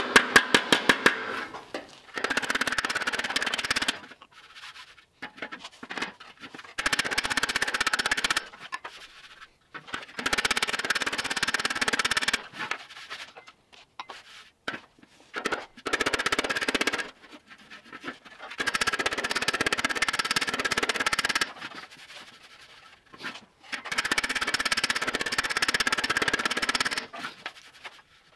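Sped-up bodywork hammering: a hammer striking a steel fender over a dolly in fast bursts of blows, about six bursts of one to three seconds with short pauses, the sheet metal ringing under the strikes.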